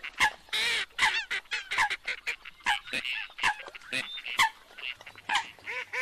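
Waterfowl calling: many short, overlapping calls of ducks and other water birds in quick succession, several a second.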